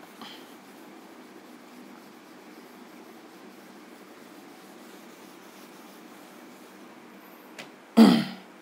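Whiteboard duster wiping marker writing off a whiteboard: a faint steady rubbing. A short loud sound comes near the end.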